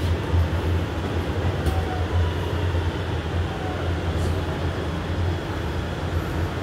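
Interior noise of an R211 subway car coming into a station: a steady low rumble of wheels on rail with a faint whine that falls slowly in pitch as the train slows to a stop.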